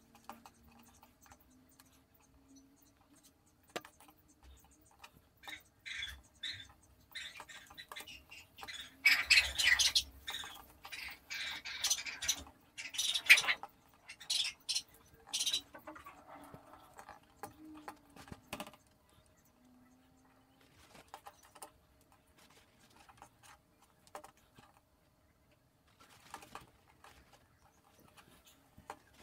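Cotton cord rubbing and sliding as it is drawn through the loops of a flat round mat knot. It makes a scatter of short rustling sounds that are loudest in the middle, with quiet gaps between pulls.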